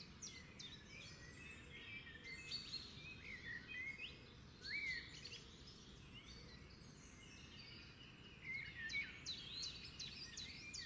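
Small birds chirping and singing faintly: many short whistled notes and chirps that glide up and down, several overlapping, over a low background hiss.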